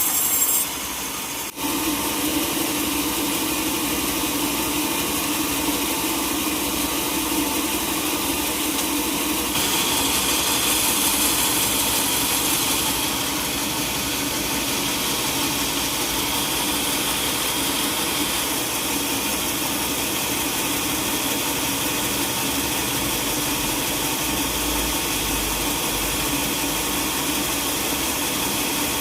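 Sawmill machinery running steadily, a mechanical engine-like noise with a faint hum. It dips briefly and changes character abruptly about a second and a half in, and again near ten seconds.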